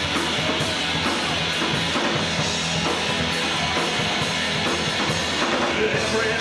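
Live rock band playing an instrumental stretch with no singing, the drum kit prominent over bass and guitar in a steady beat.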